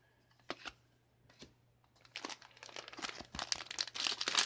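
Foil trading-card booster pack wrapper crinkling as it is handled and opened, starting after a couple of light taps and growing louder from about halfway in.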